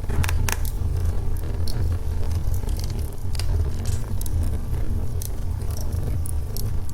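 Wood fire of burning logs crackling, with irregular sharp pops and snaps over a steady low rumble.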